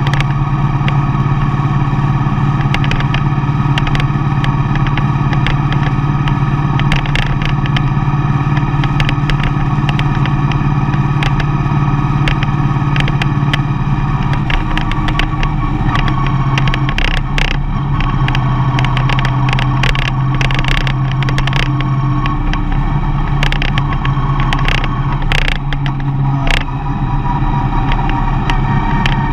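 Mercedes-Benz Vito van driving, with steady engine and road noise. The engine note steps down in pitch about halfway through, and frequent light clicks and knocks run over it.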